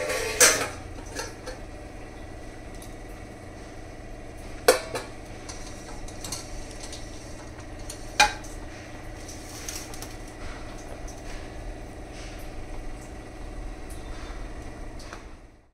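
Stainless-steel plates and cooking vessels clanking against each other on a stovetop: a loud clank about half a second in, two more sharp clinks around five and eight seconds, and lighter knocks in between over a steady low hum.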